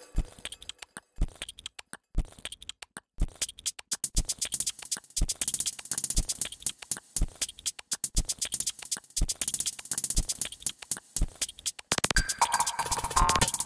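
Breakcore track playing back from an FL Studio project: chopped, stuttering breakbeat drum samples with a low kick about once a second. About twelve seconds in, a pitched sample layer comes in as more of the project's tracks are unmuted.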